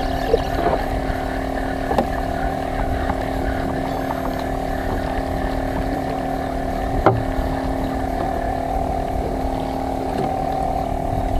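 Fishing boat's inboard diesel engine running steadily, with a few sharp clicks, the loudest about seven seconds in.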